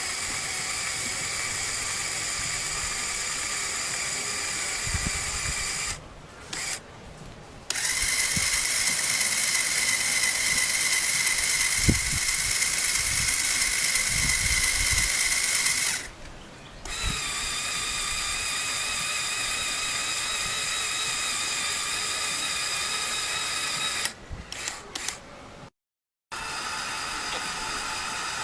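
LEGO machine's small electric motors and plastic gear trains whirring, running in stretches of several seconds that stop briefly and start again, the middle stretch louder than the rest.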